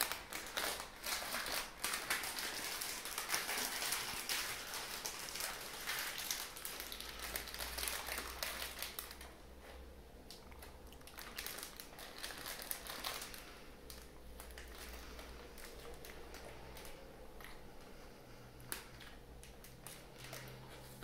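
Thin plastic pastry bag crinkling as a cream puff is handled and pulled out of it: dense, continuous rustling for the first several seconds, then sparser, quieter crinkles.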